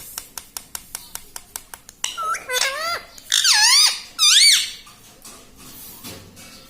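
Pet rose-ringed parakeet: a quick run of sharp clicks, then from about two seconds in a string of loud squeaky calls, each dipping and rising in pitch.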